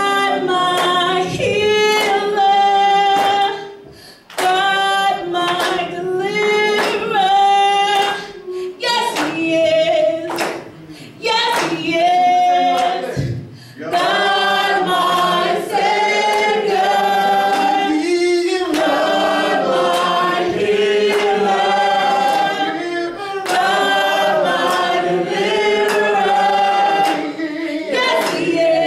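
Worship team and congregation singing a praise chorus together, mixed voices in phrases with short pauses between lines.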